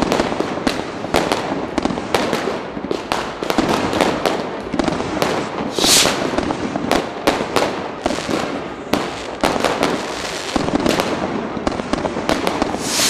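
New Year's Eve fireworks and firecrackers (Böller) going off on all sides: a dense, continuous string of bangs and crackles, with a sharp hissing rush about six seconds in and again near the end.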